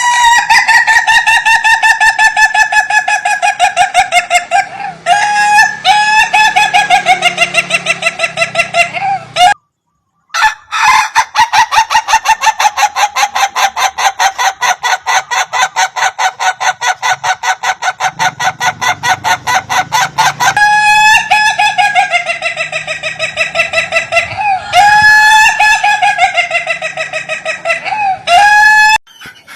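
Ayam Ketawa (Indonesian laughing chicken) rooster crowing: long crows made of a rapid string of short, laughter-like notes, several a second, one crow following another. The sound cuts out completely for under a second near the 10-second mark.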